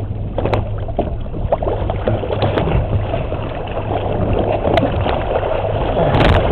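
Water splashing and sloshing as a hooked sailfish thrashes against the side of a boat, over a steady low hum, with a louder splash near the end.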